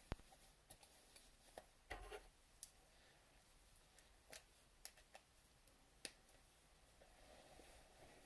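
About ten light, irregularly spaced clicks and taps with a short rustle about two seconds in: quiet hand handling of a gel pen and paper just before colouring starts.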